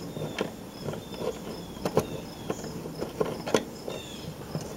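Scattered light metallic clicks and taps as a screwdriver works the mounting screw of a Model A Ford vacuum wiper motor, the two sharpest about two and three and a half seconds in. Short high chirps repeat steadily in the background.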